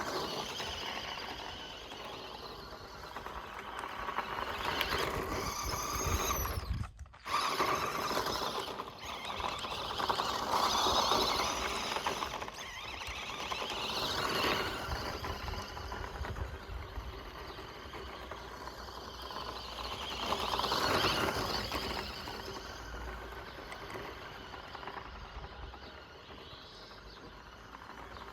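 Electric motor and gears of a 1:14-scale Audi RS Q e-tron RC car whining as it is driven over dirt, swelling and fading several times with the throttle, with a brief dropout about seven seconds in.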